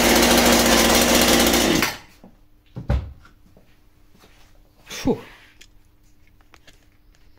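Scheppach CSP41's 41 cc two-stroke chainsaw engine running steadily while warming up, then cut off abruptly about two seconds in. Two dull knocks follow, about three and five seconds in.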